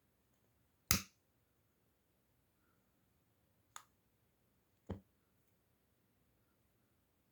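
Three sharp clicks: a loud one about a second in, then two fainter ones near the four- and five-second marks, with only faint background between them.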